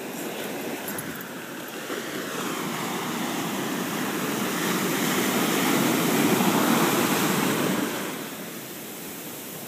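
Shallow surf washing up over wet sand: a rushing hiss of water that swells to its loudest through the middle and falls away quite suddenly about eight seconds in.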